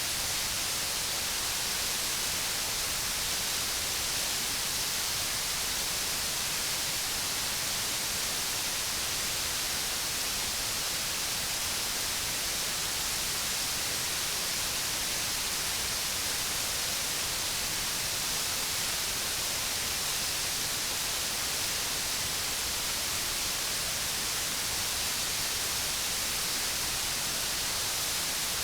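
Waterfall: steady rushing water, an even hiss.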